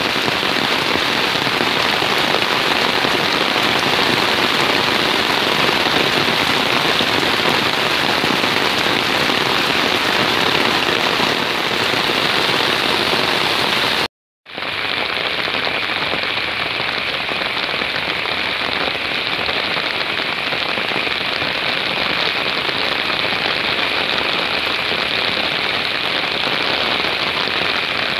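Heavy rain falling steadily, a dense even hiss of rain on the ground and foliage. It breaks off for a moment about halfway through, then carries on the same.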